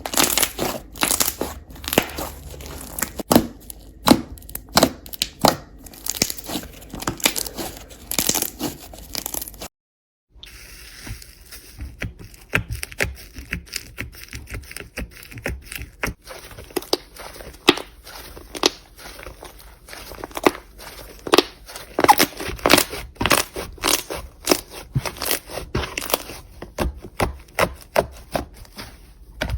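Slime being squeezed and pressed by hand, giving a dense run of sharp crackles and pops. The sound cuts out for a moment about ten seconds in, then resumes with a slightly different texture.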